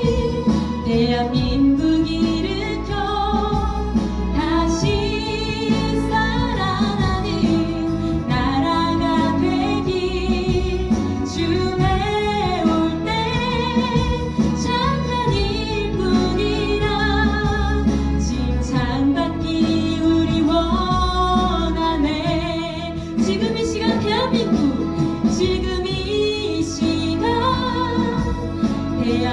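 A young woman singing a Korean Christian praise song solo into a handheld microphone, over an instrumental accompaniment. She holds long, wavering notes.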